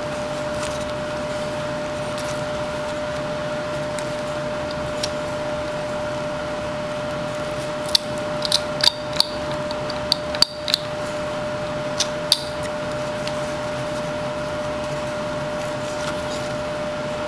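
Whittling knife cutting chips from a wooden carving: a run of sharp clicks and snaps in the middle, over a steady background hum.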